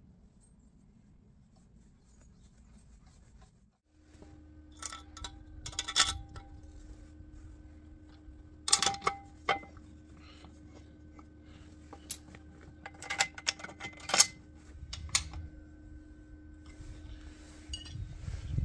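Faint low hum, then from about four seconds in a run of sharp metallic clinks and knocks as steel parts of a home-built belt grinder are handled and fitted together by hand. The loudest knocks come about nine and fourteen seconds in.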